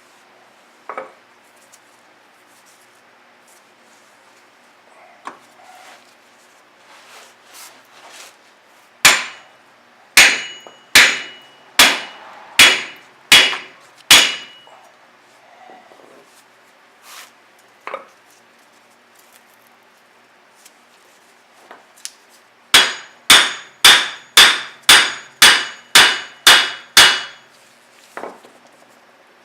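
Hammer blows on steel, knocking out a car's front wheel hub and bearing that is seized by corrosion. There are two runs of heavy strikes, each with a short metallic ring: about seven blows roughly a second apart, then after a pause about ten quicker blows, about two a second. Lighter taps fall in between.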